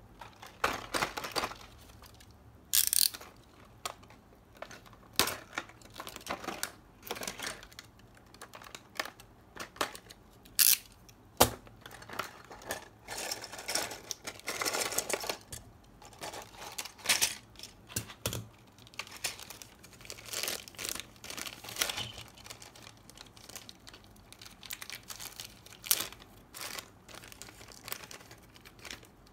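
Clear plastic blister packaging and a plastic bag of rubber tyres crinkling as they are handled, with sharp clicks and taps of small plastic model parts. The crinkling runs longest about halfway through.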